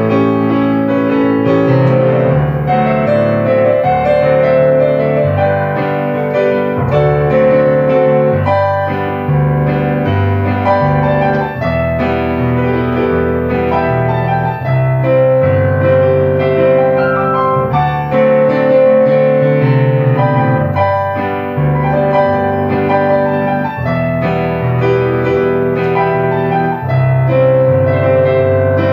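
Solo upright piano played with both hands: a melody line over a steadily moving bass and chords.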